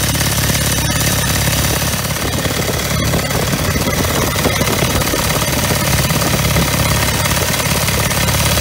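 1920 Douglas W20's flat-twin engine running under way at a steady cruise: a rapid, even exhaust beat.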